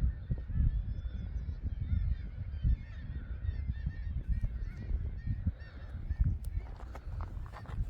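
A cliff seabird colony calling: many short, harsh, overlapping calls without a break, with wind rumbling on the microphone.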